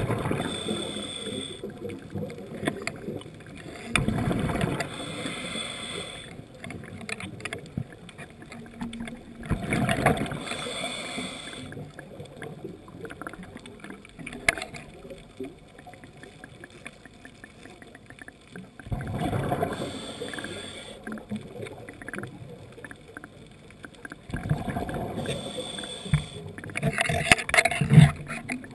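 Scuba diver breathing through a regulator, heard through an underwater camera housing. A low bubbling rush of exhaled bubbles comes every several seconds, and a hiss with a faint high whistle comes in between on each inhale.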